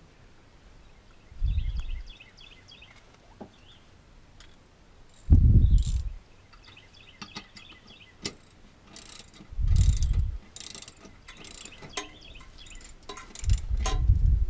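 A ratchet wrench clicking on a mower blade's centre bolt under a garden tractor's cutting deck, with quick runs of sharp clicks in the second half. Four low dull thumps about four seconds apart are the loudest sounds, and birds chirp faintly early on.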